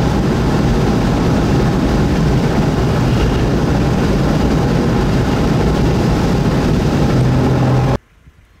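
Steady road noise of a car driving at highway speed, heard from inside the cabin: tyre and wind rumble with a low engine drone. It cuts off abruptly near the end, leaving only faint quiet.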